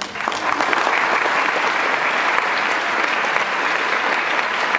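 A large audience of students clapping: the applause breaks out right at the start, builds within about a second, then holds steady and dense.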